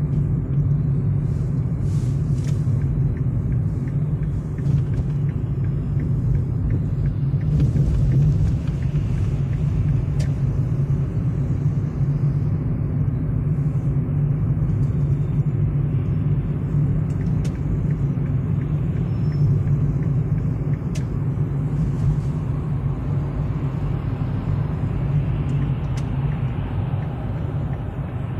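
Steady low rumble of a car driving in city traffic, heard from inside the cabin: engine and tyre noise with a few faint ticks.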